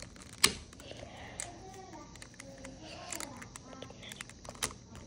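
Sharp plastic clicks of a partly taken-apart Tornado V3 magnetic speed cube as its loose pieces are handled and pressed back into place, the loudest about half a second in and others near one and a half and four and a half seconds.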